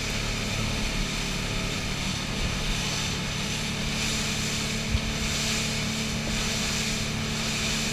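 Boat's outboard engine running steadily under way, a constant drone with an even hiss of wind and water over it.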